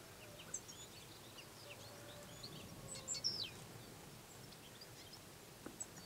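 Faint chirps and short high calls of small songbirds, scattered throughout and a little louder about three seconds in, over a steady background hiss.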